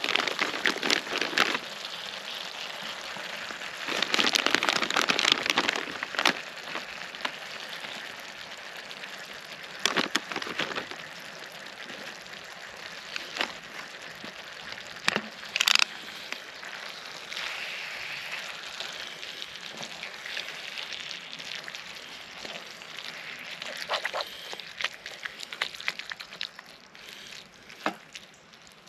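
Pan of chopped vegetables and chicken mince sizzling over a small twig-burning stove, a steady hiss full of crackles and pops. It is louder for a couple of seconds about four seconds in, with a sharp crack about halfway through.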